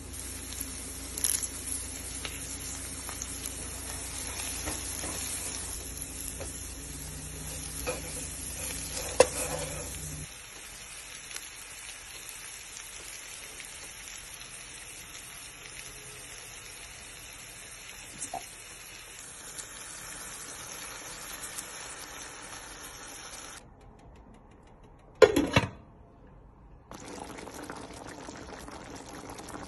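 Sliced onions, ginger and garlic sizzling steadily in a stainless steel pot, stirred with a wooden spoon that knocks against the pot a few times; the frying goes on with chicken thighs browning among the onions. A short quieter stretch near the end holds one sharp knock.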